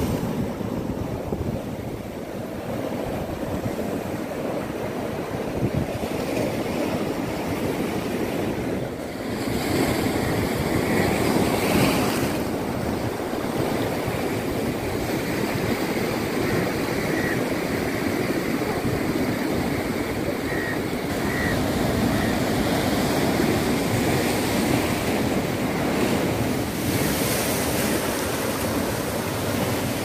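Sea surf breaking and washing over rocks along the shore: a steady, continuous rush of water that swells and churns.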